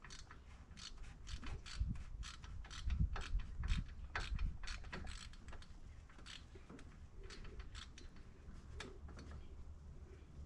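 Hand ratchet wrench being worked back and forth on a fastener, a run of sharp clicks that thins out after about six seconds, with a few dull knocks in the first half.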